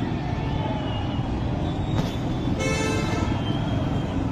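Steady road-traffic rumble, with a vehicle horn sounding once for under a second about two and a half seconds in.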